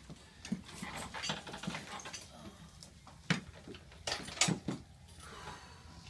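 A person turning over on a padded chiropractic table: clothing and table pads rustling, then a few sharp knocks and creaks from the table about three and four seconds in.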